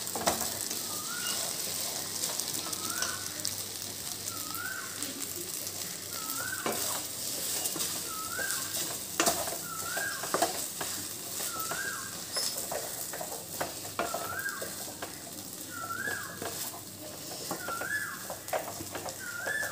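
Cooked vermicelli being stir-fried in a steel pan: a soft frying sizzle with the scrape of a spatula and scattered knocks of it against the pan. A faint short rising chirp repeats about every second and a half to two seconds through it.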